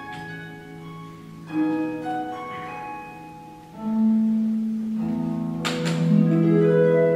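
Concert pedal harp played solo: plucked notes and chords left to ring, with new notes entering about a second and a half in and again about four seconds in. About three-quarters of the way through comes a short, noisy stroke across the strings.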